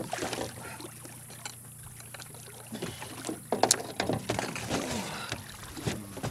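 Irregular knocks and clatters on a metal boat's hull and gear as a big alligator gar is hauled against the side on a rope, over a steady low hum. The sharpest knocks come right at the start and about three and a half seconds in.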